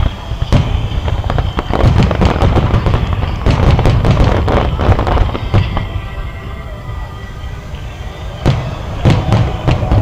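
Fireworks bursting over the water: sharp bangs and a dense crackling volley from about two to five and a half seconds in, a lull, then more bangs near the end.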